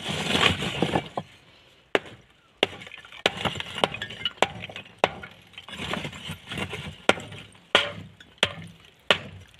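A steel rebar rod being worked free from broken fired bricks: repeated sharp, irregular knocks of metal and brick, with scraping and brick chunks clinking and shifting between them.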